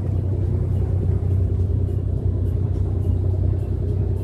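A tourist boat's engine running steadily: an even, low drone without changes in pitch.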